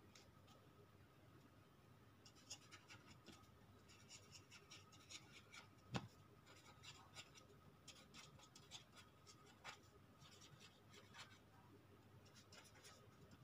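Faint scratching of a pen writing on paper in short clustered strokes, with one sharp tick about six seconds in.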